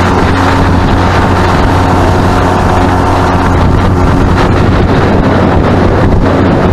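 Boat motor running steadily under way, with wind buffeting the microphone.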